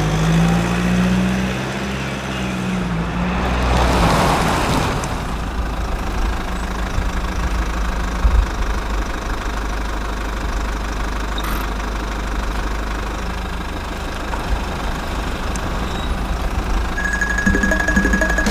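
Vehicle engine running steadily with a low rumble, its pitch falling slightly over the first few seconds; a brief steady high tone sounds near the end.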